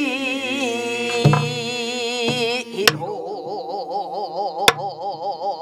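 Singing in Namdo yukjabaegi folk-song style: a long held note with a wide, slow vibrato. Four sharp strokes on buk barrel drums fall under it.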